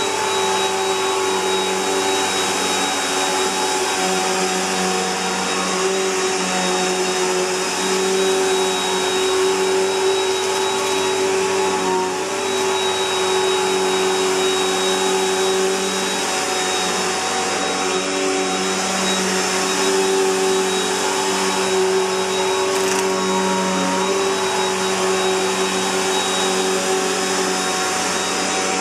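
Bissell PowerLifter Bagged Pet upright vacuum cleaner running steadily, its motor giving a high, constant whine over the rush of air.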